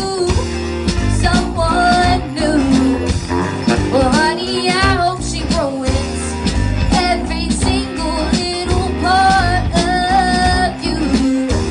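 Live rock-blues band playing: female vocals singing over electric guitar, bass and a drum kit.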